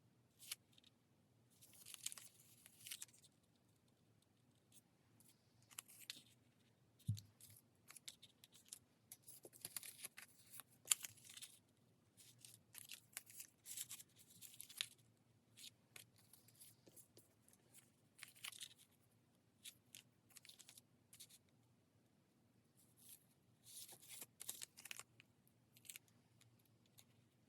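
Faint paper-crafting sounds: short scratchy bursts of paper being cut, torn and handled, in irregular spells with pauses between. One soft knock about seven seconds in.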